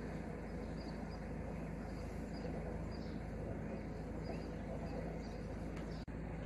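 Narrowboat engine running steadily as the boat cruises, with small birds chirping repeatedly over it. The sound cuts out for an instant near the end.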